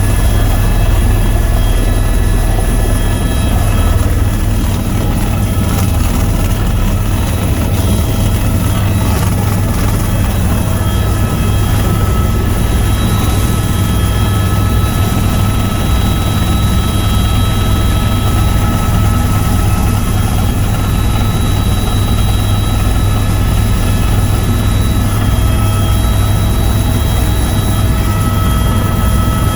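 Tour helicopter in steady flight, heard from inside the cabin: a constant deep rotor drone with a steady high turbine whine on top.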